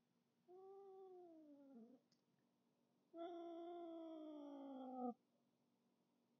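Domestic cat meowing twice, faintly: a meow of about a second and a half, then a longer drawn-out meow of about two seconds that slowly falls in pitch.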